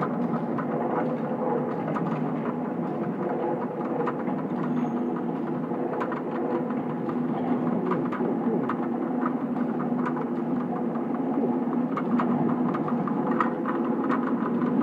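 Automatic can filling and sealing line running: a steady machine hum with many short, irregular metallic clicks from the cans on the conveyor, coming thicker near the end.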